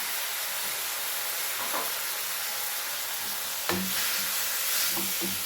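Spiced tomato masala with tamarind water just added, sizzling in a hot pan: a steady hiss. A spoon stirring it knocks against the pan a few times.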